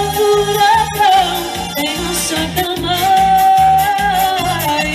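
Live amplified music from a singer-and-band duo: a steady bass beat under a long held melody line with vibrato, in the style of Portuguese popular festival songs.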